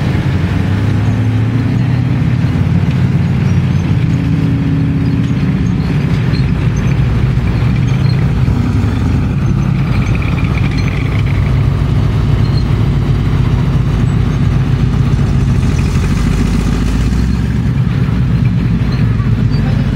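Armoured military vehicles running close by: first the engine of a wheeled armoured car, then an M3 Stuart light tank driving slowly with its engine running steadily.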